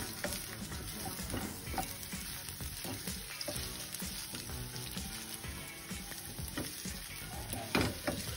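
Sliced red onions sizzling in hot oil in a frying pan, stirred and scraped with a wooden spatula. There is one louder knock near the end.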